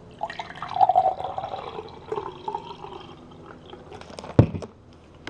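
Iced tea being poured from a bottle, gurgling for about three seconds. It is followed by a single sharp knock about four seconds in.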